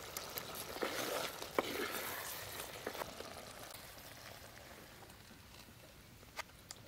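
Thick mushroom and pea curry bubbling and sizzling in an earthen pot, with a wooden spatula knocking and scraping through it. The sizzle fades away as the pot comes off the heat, and a few light clicks sound near the end.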